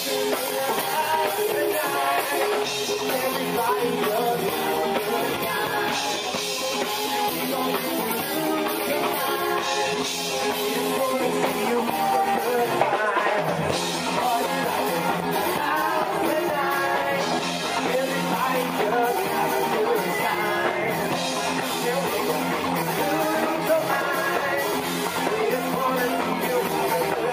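Live rock band playing, a singer over drums and instruments, with the sound of an outdoor stage PA.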